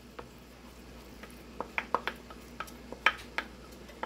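Wooden spoon tapping and scraping scrambled egg out of a bowl into a stainless steel pan: a scattered run of light clicks and knocks.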